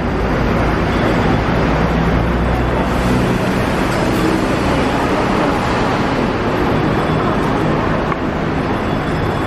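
Steady background noise of an airport terminal hall, an even hiss with a low rumble that drops away about three seconds in.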